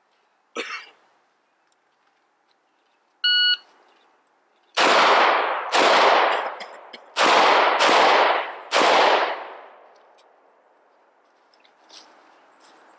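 A shot timer's short start beep, then five pistol shots over about four seconds, each with a long echo trailing off.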